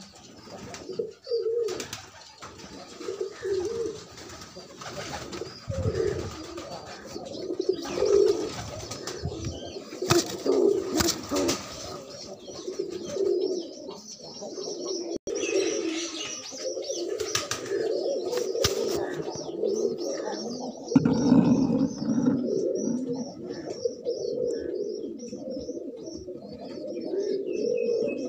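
Domestic pigeons cooing again and again, low calls coming about once a second, with a few sharp clicks around the middle.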